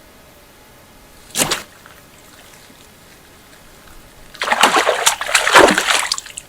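Water splashing: one short splash about a second and a half in, then nearly two seconds of repeated, louder splashing near the end.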